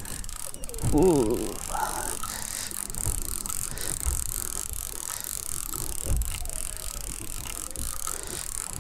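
Fishing reel being wound, bringing line up from deep water, with the reel's gears turning steadily. A brief voice sound comes about a second in.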